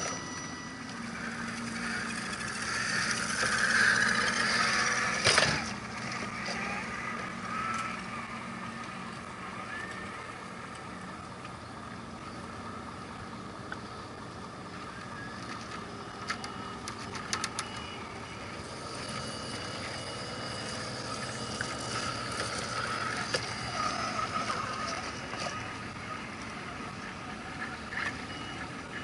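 Radio-controlled scale crawler trucks running, with the steady whine of their electric motors and gearboxes. A sharp knock comes about five seconds in.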